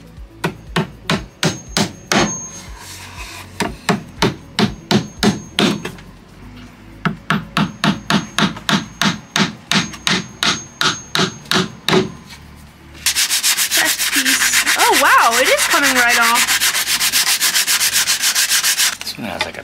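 A hammer tapping small nails into a wooden trim strip in three quick runs of light, even blows, about four a second. Then, about 13 seconds in, about six seconds of rapid hand sanding of the trim's end with sandpaper.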